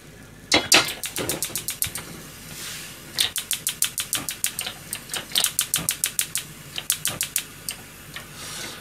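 Rapid runs of sharp clicks, several a second with short gaps, as the push buttons on a gas range's front control panel are pressed over and over to set the cooking temperature.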